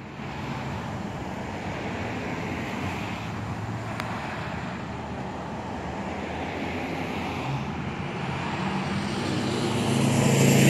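Street traffic noise: the steady sound of vehicles on the road, with one vehicle's engine growing louder near the end as it approaches.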